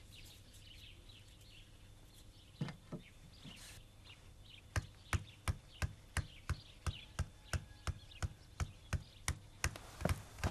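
Long wooden pestle pounding in a wooden mortar: a steady run of dull knocks, about three a second, that begins about halfway in. Faint birds chirp before it starts.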